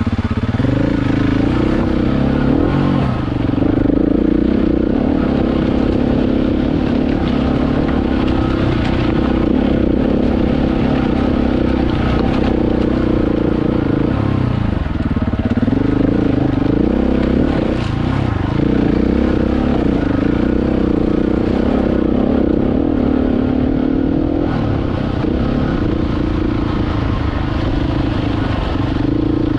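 KTM 690 Enduro's single-cylinder engine running under way, its note rising and falling with the throttle and dipping briefly a few times.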